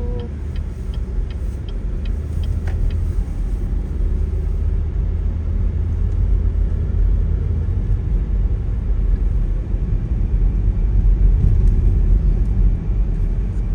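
Steady low rumble of a car driving, heard from inside, swelling slightly as it goes on. A light, rapid ticking, about three a second, runs over it for the first three seconds or so and then stops.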